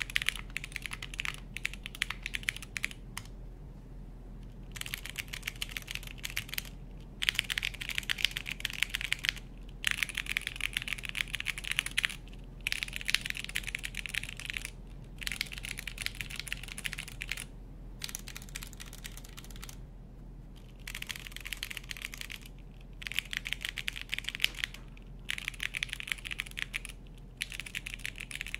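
Typing on a TKD Cycle 8 tenkeyless mechanical keyboard: rapid keystrokes in runs of a few seconds, broken by short pauses, over a faint steady low hum.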